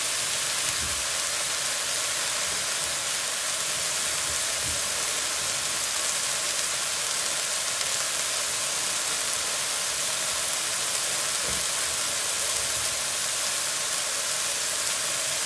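Chopped binahong (Madeira vine) leaves and stems sizzling steadily in a metal wok, left unstirred.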